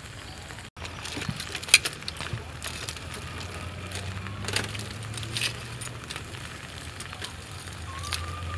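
Metal tongs clicking and scraping against a wire grill and the shrimp as grilled shrimp are turned over charcoal, with scattered sharp clicks and crackles. A rooster starts crowing near the end.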